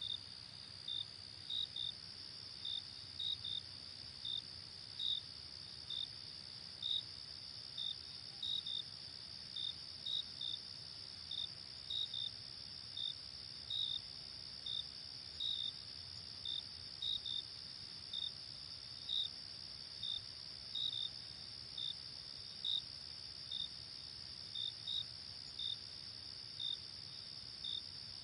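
Crickets chirping at night: short high chirps, single or in pairs, about twice a second, over a steady high-pitched insect trill.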